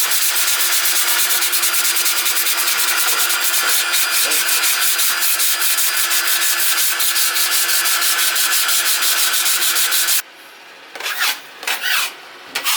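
Paint being sprayed: a steady, loud hiss with a faint hum under it, cutting off abruptly about ten seconds in.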